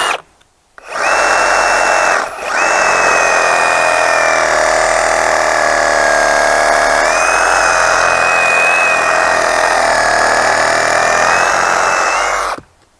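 Cordless Ryobi ONE+ HP brushless reciprocating saw with a pruning blade cutting through a limb about 3 inches thick. There is a short burst and a brief pause, then one long continuous cut. The motor whine sags in pitch under load partway through, climbs back, and stops shortly before the end.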